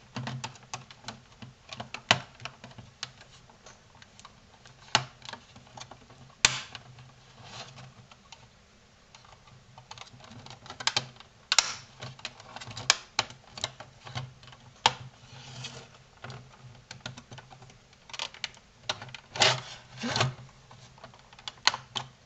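Irregular plastic clicks, taps and light scraping as a flat metal pry tool works along the seam of a PlayStation 4 power supply's plastic case to release its clips, with a dozen or so louder sharp clicks scattered through.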